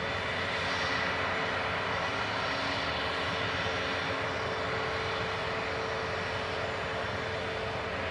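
Airbus A320neo jet engines running at low power on the ground, a steady rush of engine noise with a held tone underneath.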